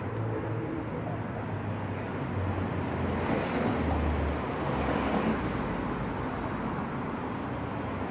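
Street traffic noise: a motor vehicle's low engine hum under road noise, swelling as it passes about halfway through.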